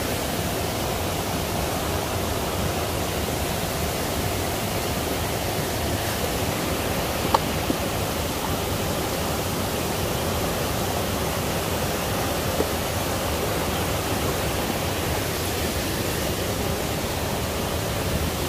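Steady rush of a rocky stream flowing over stones. Three small clicks sound over it, two close together about seven seconds in and one about twelve and a half seconds in.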